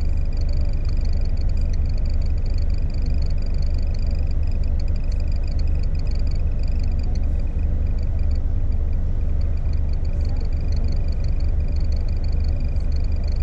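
Steady low rumble of an idling coach engine, with a continuous high trilling chorus of night animals above it.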